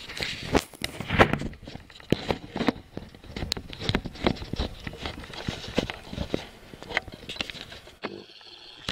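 Handling noise of a camera being set down and positioned: irregular knocks, clicks and rubbing against the microphone, quieting to a steady low hiss near the end.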